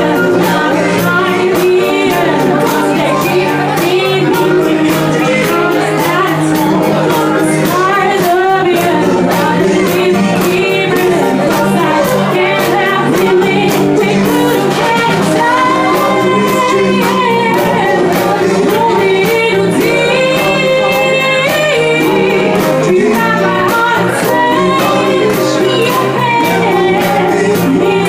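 A woman singing into a microphone with a live band of electric guitar and keyboards, over a steady beat.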